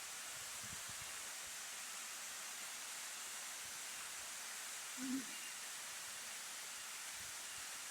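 Steady rushing hiss of a waterfall, with one short low-pitched hoot-like sound about five seconds in.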